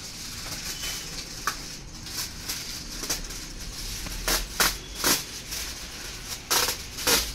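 Bundle of dry straw rustling and crackling as it is carried and handled, in irregular crunchy clicks, with a few sharper crackles in the second half.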